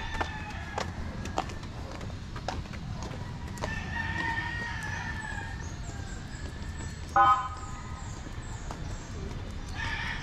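A rooster crowing, one long wavering call about four seconds in. Earlier there are scattered sharp taps. A short, loud tone sounds about seven seconds in and is the loudest moment. A steady low rumble of the surroundings runs underneath.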